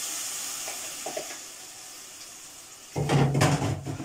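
Tomato mixture sizzling in a frying pan on a gas stove, the hiss fading, then about three seconds in a loud burst of spoon clatter and scraping in the pan as it is stirred.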